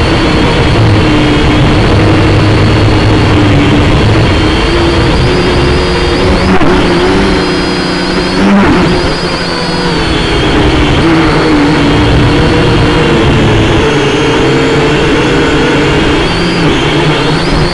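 Syma X5SC-1 quadcopter's four small brushed motors and propellers whirring in flight, loud and close on its own onboard camera. The pitch rises and falls a little as the motor speed changes.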